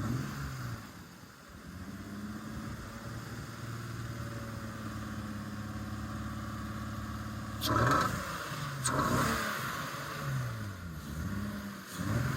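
BMW E36 engine blipped up and down, then idling steadily for several seconds, then revved again in repeated blips after a sudden louder burst. The car has an intermittent misfire that the owners are trying to diagnose.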